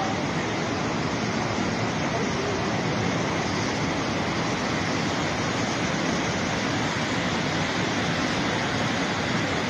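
Steady rushing of floodwater, an even noise with no breaks.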